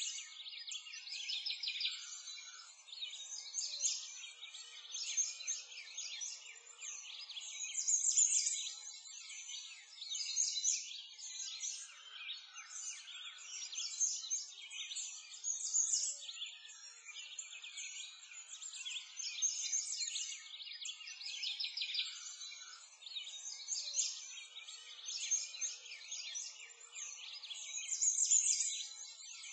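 Many songbirds chirping, a dense overlapping chorus of short high calls that swells and fades every second or two.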